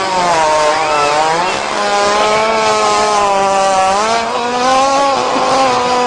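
A long, drawn-out buzzing fart sound at a steady pitch that steps up a little near the middle, breaking off briefly twice.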